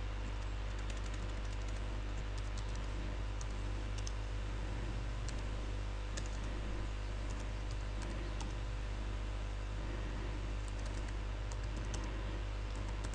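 Computer keyboard keys tapped slowly and irregularly while a terminal command is typed, faint clicks over a steady low hum.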